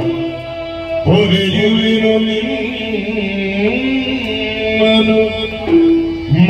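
Yakshagana music: a male bhagavata sings one long, wavering held note over a steady drone. The drone sounds alone at the start and again near the end.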